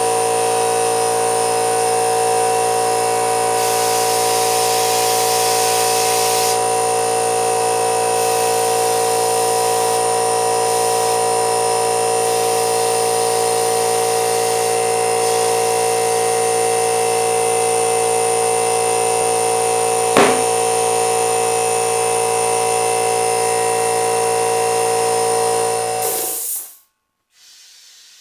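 Electric air compressor running with a steady hum while inflating a car tyre, with a single sharp pop about 20 seconds in as the tyre bead seats onto the wheel rim. The sound cuts off abruptly near the end.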